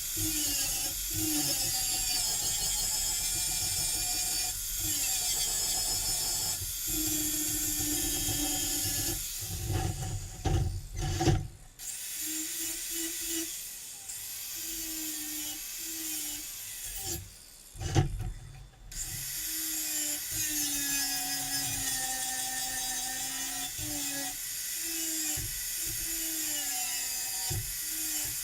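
Angle grinder grinding down welds on steel, its whine dipping and rising as it bites into the metal. It breaks off briefly with a few knocks about ten seconds in and again near eighteen seconds.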